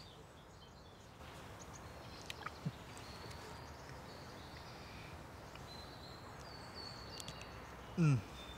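Quiet steady background hiss with a few faint clicks and faint high tones. Near the end a man gives one short groan that falls in pitch.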